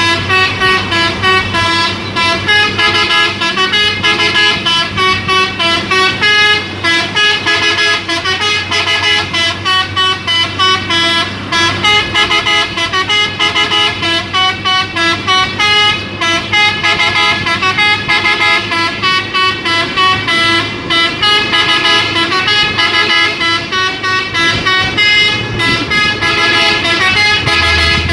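Telolet multi-tone horn on a Hino Euro 2 dump truck playing a tune of quickly changing notes without a break, over the truck's engine running low. The engine's hum grows louder near the end.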